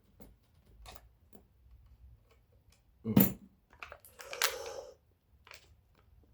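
Objects handled on a workbench: a few light clicks and taps, a sharp knock about three seconds in as something is set down, then a brief scraping rattle.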